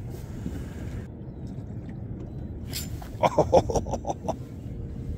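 Steady low rumble of wind and water on an open boat. A little past three seconds in comes a short, loud run of five or six quick voice-like bursts, lasting about a second.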